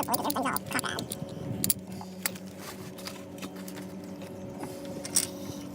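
Metal clinks and rattles of hand tools and bolt hardware, busiest in the first two seconds, over a steady low hum.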